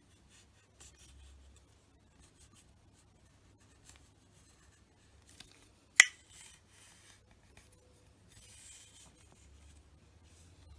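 Faint rubbing and handling noises as a tennis racket frame is turned over in the hands, with one sharp knock about six seconds in.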